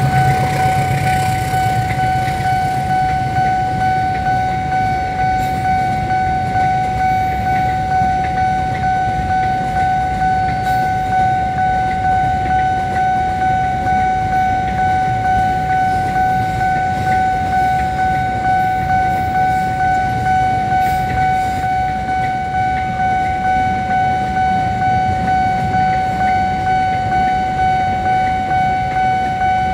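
Railway level-crossing warning bell ringing in a steady rhythm, a little faster than once a second, over the rumbling of a passing freight train of container wagons. A train horn fades out just at the start.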